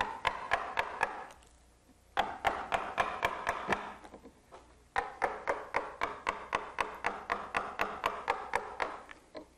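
A carver's mallet tapping a wide carving gouge through wood, with sharp, evenly spaced taps about three a second in three runs separated by short pauses.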